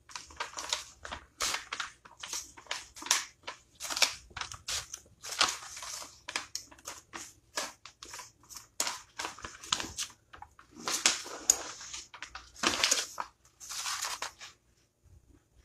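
Heat transfer paper being peeled slowly off a freshly heat-pressed T-shirt, rustling in a long run of short, irregular bursts, a few louder ones near the end.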